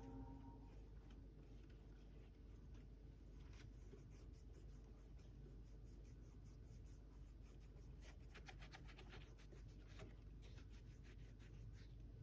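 Faint scratching and rustling of handling, near silence overall, with a dense run of light clicks about eight seconds in.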